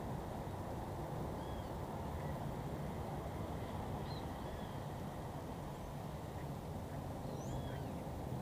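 Outdoor ambience: a steady low rumble with faint bird chirps and short whistles scattered through it, several of them gliding in pitch.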